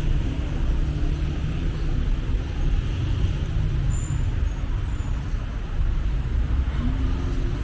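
Steady city street traffic noise: a continuous low rumble of passing cars along the roadway.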